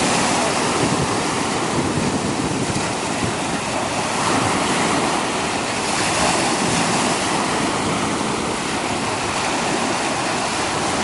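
Ocean surf breaking and washing up the shore in a steady wash of noise.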